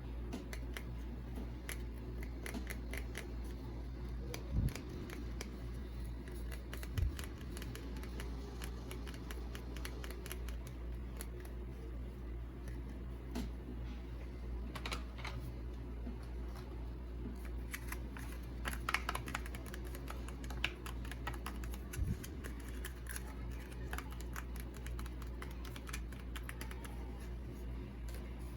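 Small objects being handled: many light clicks and taps, with a few dull thumps, over a steady low hum.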